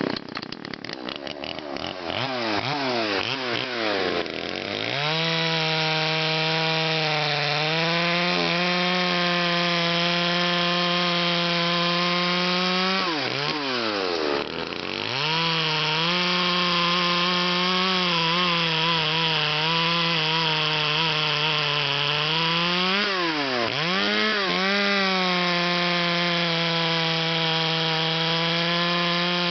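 Homelite-built John Deere 3816 two-stroke chainsaw running. It is blipped up and down for the first few seconds, then held at a high, steady full-throttle whine, dropping briefly toward idle and climbing back twice, about halfway through and again about three-quarters through.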